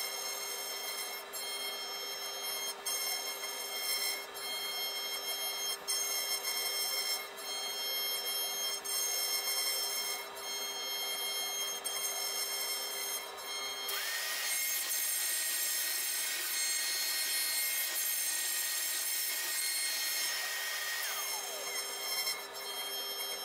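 CNC router spindle whining steadily as its tapered bit carves a relief into a wooden board, with the scrape and crackle of the cutting. About fourteen seconds in, a louder hiss with a higher steady whine sets in; the whine winds down in pitch and stops about seven seconds later.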